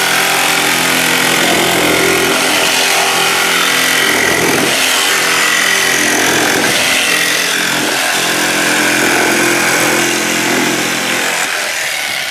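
Electric jigsaw running steadily as its blade cuts through thermoformed acrylic sheet, trimming the excess from a moulded letter. The sound eases a little near the end.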